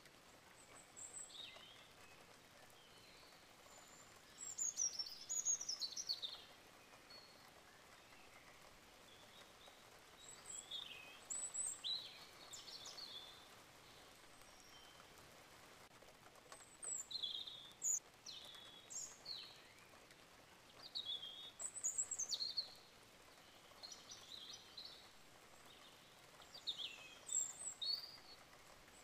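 Small birds chirping in short bursts every few seconds, over a faint steady hiss.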